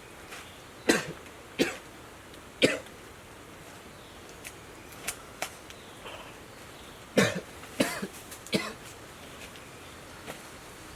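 A man coughing in two bouts of three hard coughs, about five seconds apart. It is a sick cough from a sore throat that kept him coughing all night.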